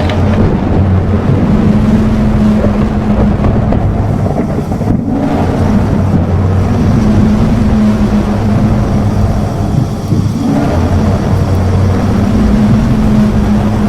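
Loud, continuous rumbling noise with a low droning hum that swells and fades, a designed analog-horror sound effect presented as the audio record of a giant 'Tornado' entity.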